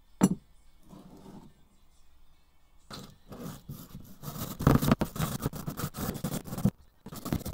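A metal C-clamp set down on a wooden workbench with a single sharp knock. From about three seconds in, a hand wire brush scrubs rust off an old C-clamp in quick scraping strokes, with a brief pause near the end.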